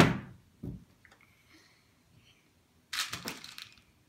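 A sharp knock right at the start and a duller thump just after, then a short scratchy rattle about three seconds in: handling noise from a penny-roofed wooden birdhouse and plastic bead tubs on a glass-topped table.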